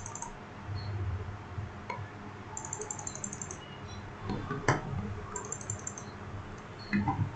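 A computer mouse clicking in quick runs of several clicks, with a few single clicks between them, over a faint steady low hum.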